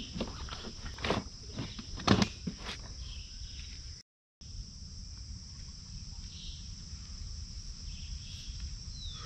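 Steady high-pitched insect buzzing, with knocks and rustles of camping gear being handled and packed into a kayak during the first three seconds. The sound drops out for a moment just after four seconds, then the insect buzzing goes on alone over a low rumble.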